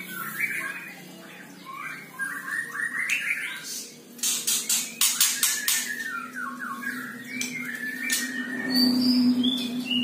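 White-rumped shama (murai batu) calling in quick runs of short gliding chattering notes, with a burst of sharp clicks about halfway through.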